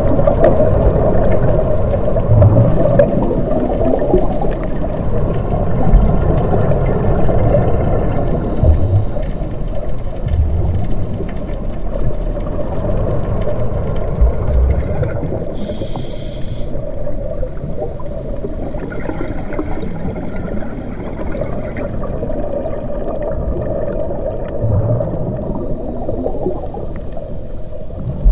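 Underwater ambience: a steady low drone with muffled gurgling rumbles, and a brief high hiss about sixteen seconds in.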